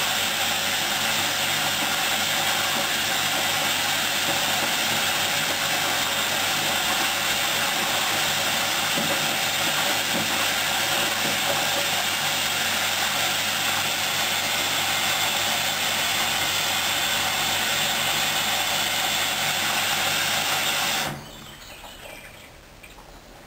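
Hoover washing machine on its final rinse: a loud, steady rushing noise that cuts off abruptly about 21 seconds in, leaving the machine much quieter.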